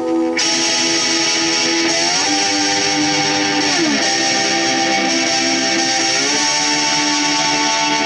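Homemade pan-bodied lap steel guitar played with a slide: held chords that glide up in pitch about two seconds in, slide back down near four seconds, and glide up again around six seconds.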